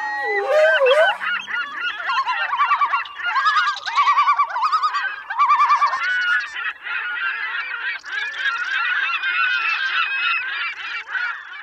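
A flock of gulls calling over one another in a dense, loud chorus of squawks and yelps, with a run of quick repeated calls between about three and six seconds in.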